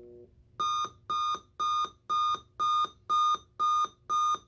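RCA RP-3855 clock radio's alarm beeping, about two evenly spaced high-pitched beeps a second, starting about half a second in. A short lower tone fades out just before the beeping begins.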